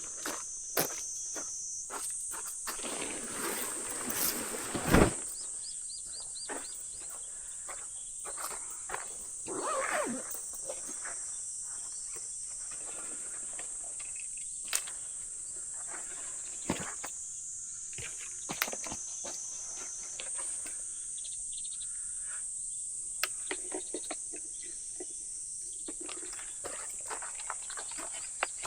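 Steady high-pitched chorus of insects, with scattered knocks and clicks over it, a cluster of louder ones in the first five seconds.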